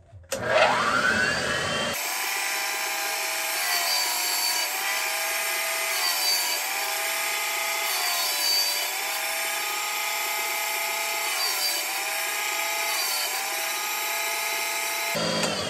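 Thor valve grinder's electric motor and grinding wheel starting up with a rising whine, then running as the wheel trims the end of a Ford 8N tractor valve stem. The pitch dips several times, and the sound runs down near the end.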